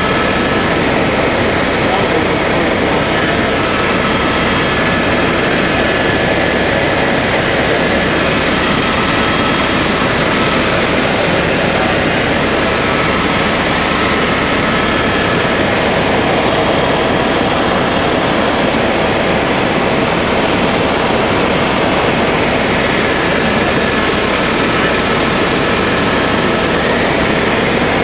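Steady engine and airframe noise inside a small aircraft's cabin in flight, a loud, even rush with faint steady tones that come and go.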